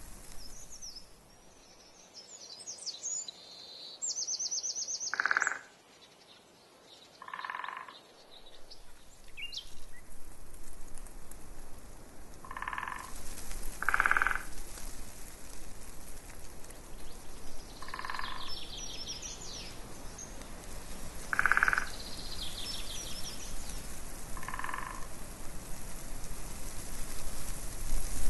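Short animal calls, each under half a second, repeat every few seconds, like a frog croaking. Birds twitter at a higher pitch in short bursts near the start and again around the middle.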